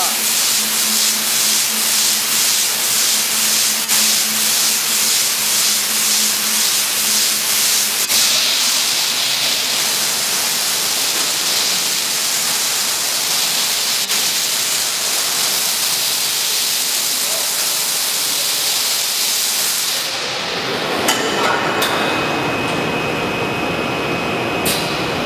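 BOPP tape slitting machine running at speed: a loud, steady hiss from the film running over the rollers and slitting knives, with a faint fast pulsing and a low hum that stops about eight seconds in. About twenty seconds in the hiss drops away to a duller running noise with a few sharp clicks and a thin steady high tone.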